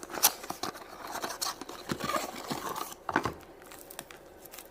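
Wrapper of a chocolate surprise egg being torn open and crinkled by hand: a run of sharp crackles, rustles and small clicks.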